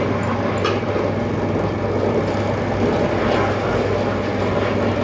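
Powered wooden oil ghani (kolhu) running, its wooden pestle turning in the wooden mortar to press coconut for oil: a steady mechanical rumble with a constant low hum.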